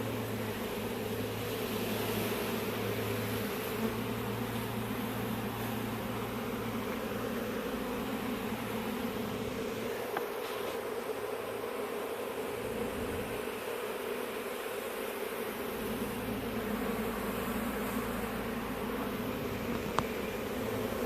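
A steady, dense hum of many honeybees buzzing together: a colony stirred up as its nest is opened and handled.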